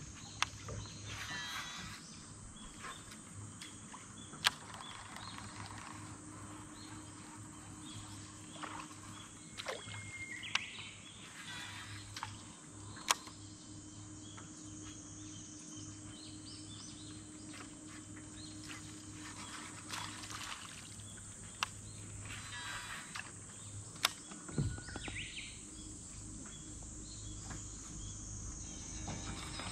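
Quiet outdoor ambience on a reservoir: a steady background hiss and low hum, scattered short bird calls, and a few sharp clicks.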